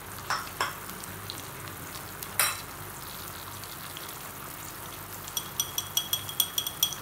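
Mustard oil and onion paste sizzling steadily in a frying pan, with three light clicks in the first half. From about five seconds in comes a quick run of ringing metallic clinks from a steel spoon striking metal.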